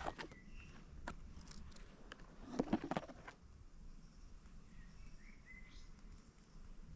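A few faint bird chirps against quiet forest ambience, with a handful of soft knocks and rustles, the loudest about two and a half to three seconds in.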